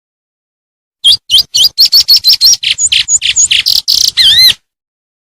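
A songbird singing one fast phrase of about fifteen sharp whistled notes and harsh chips, with quick pitch slurs, ending in two wavering whistles. The phrase starts about a second in and lasts about three and a half seconds.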